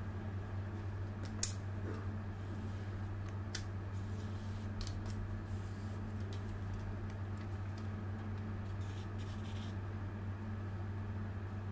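Plastic cake scraper smoothing cream frosting around the side of a cake, with light scraping and a few short clicks, one sharper click about a second and a half in, over a steady low hum.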